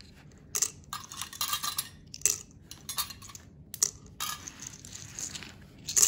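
Dry pasta shells dropping into a glass jar, clicking and clattering against the glass and each other in small irregular bursts.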